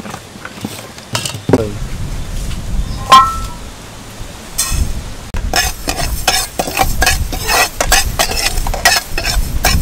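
Dry rice grains being roasted in a frying pan: a few clinks, the rice poured in with a short rush, then from about halfway a metal ladle stirring and scraping the grains against the pan in a quick, busy run of scrapes and clinks.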